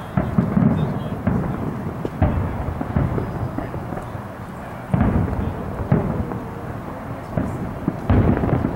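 Aerial firework shells bursting overhead, a rapid run of deep booms and bangs, heaviest in clusters about five seconds in and again near the end.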